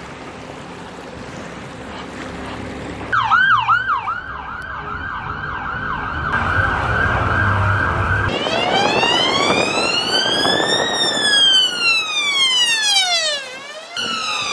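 Police vehicle siren: a fast yelp starting about three seconds in, changing at about eight seconds to a slow wail that rises and falls, with a short break just before another wail begins.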